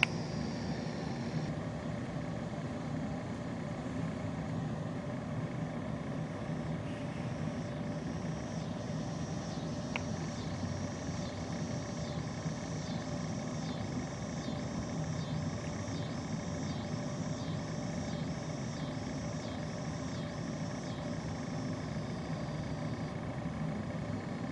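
Steady low rumble of distant road traffic. From about a third of the way in until near the end, a high chirp repeats about one and a half times a second, with a single sharp click partway through.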